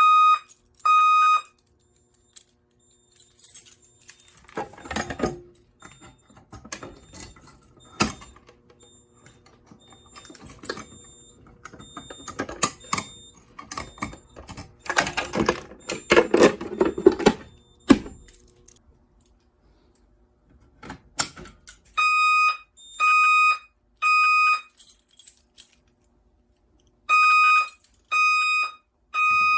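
Electronic fire alarm horn sounding the three-pulse temporal evacuation pattern: three short blasts of one steady tone, then a pause. It sounds just after the start, falls silent for most of the clip while irregular clattering and knocking of devices being handled is heard, and comes back with two more three-blast rounds near the end.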